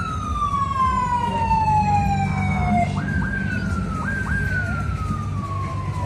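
Electronic siren-like whistle: a tone that jumps up sharply and then glides slowly down in pitch over two to three seconds. It restarts with a quick double jump about three seconds in and again about four seconds in, over a low steady hum.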